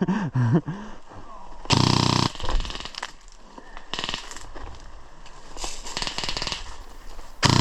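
Airsoft guns firing several short bursts of rapid clicking shots, the loudest about two seconds in.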